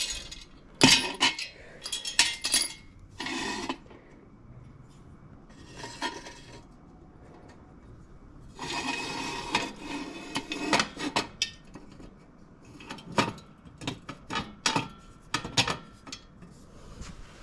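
Steel jack stand being set in place under a jacked-up ATV: irregular metal clanks and clinks, with a longer scraping stretch about nine seconds in.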